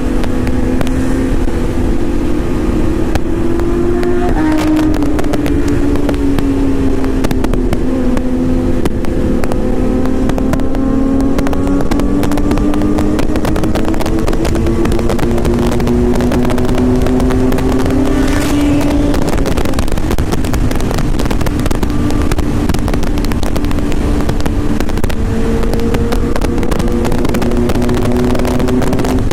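Kawasaki Z900's inline-four engine pulling hard in a high gear at around 160 to 180 km/h, its pitch climbing slowly as the speed builds, under heavy wind rush.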